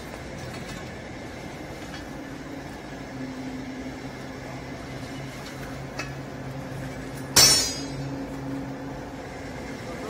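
Steel baling wire being threaded around a compressed bale in a vertical baler, with light metallic clicks and one loud, sharp metallic clank about seven seconds in. A steady low machine hum runs through most of it.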